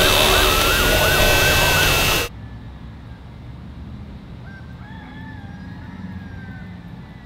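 Loud tomato packing-line machinery with a squealing tone that rises and then dips up and down several times, cutting off suddenly about two seconds in. Then a much quieter low engine hum, with a faint drawn-out wavering call in the middle.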